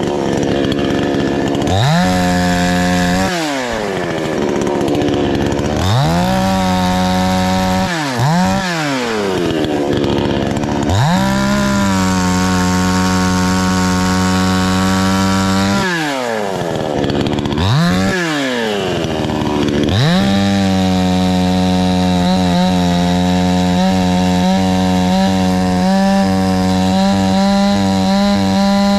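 Two-stroke chainsaw revved up and dropped back to idle again and again, then held at high revs from about two-thirds of the way through.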